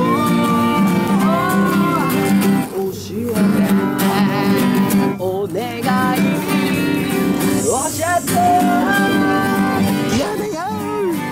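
Live acoustic music: two acoustic guitars strumming chords while a violin plays and a man sings a song in Japanese.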